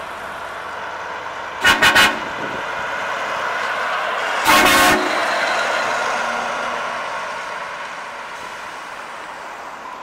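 Volvo FH truck passing close, its engine and tyre noise swelling and then fading, while an air horn toots three times in quick succession and then gives one longer blast about three seconds later.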